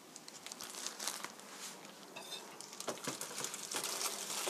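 Plastic crinkling and rustling as a film-wrapped tray of raw chicken is carried and handled in a plastic-gloved hand, with a few light knocks about three seconds in.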